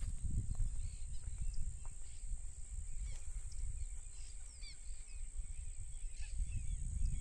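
Wind rumbling on the microphone, with birds chirping in short sweeping calls, most of them around the middle, over a steady high-pitched hiss.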